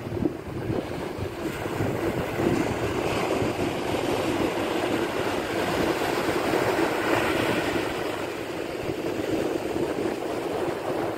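Ocean surf breaking and washing up a sandy beach: a steady rush of foam and water that swells louder twice as waves come in.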